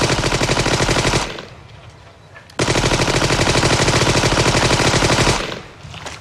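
Two long bursts of rapid automatic gunfire. The first ends about a second in, and the second starts about two and a half seconds in and runs for nearly three seconds.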